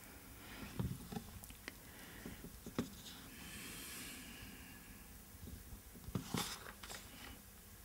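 Quiet room tone with faint rustling of paper sheets shifted on a desk and a few soft clicks and taps, the clearest tap about six seconds in.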